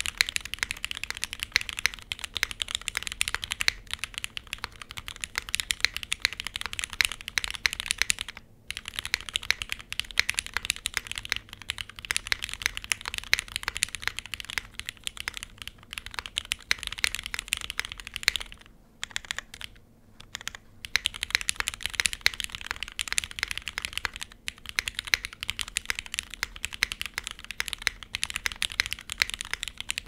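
Continuous typing on a Moment (JJW.KB) custom mechanical keyboard with lubed, filmed Cherry MX Black linear switches, a polypropylene plate and GMK keycaps: a dense run of keystroke clacks. It breaks off briefly a few times, longest near the middle.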